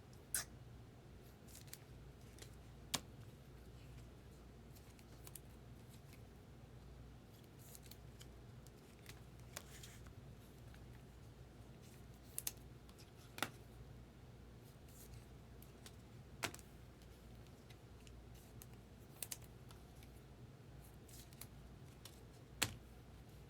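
Trading cards and packaging being handled: a few sharp, isolated clicks and snips spaced several seconds apart, over a steady low hum.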